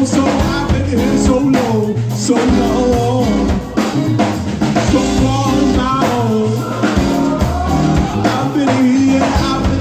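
Live band playing loudly: a singer over a drum kit, electric guitar and keyboard.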